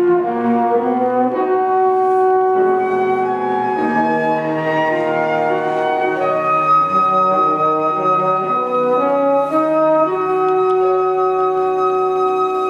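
Flute ensemble playing a slow passage in several parts, with a high note held from about halfway through while the lower parts move beneath it.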